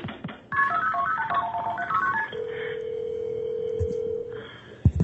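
Touch-tone telephone dialing heard over a phone line: a quick run of about a dozen key tones, then one steady ringing tone for about two seconds, and a click near the end.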